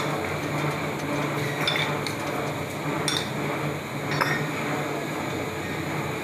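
A few sharp metallic clinks and knocks as a heavy steel block is pushed and handled on a wooden workbench, over a steady low background hum.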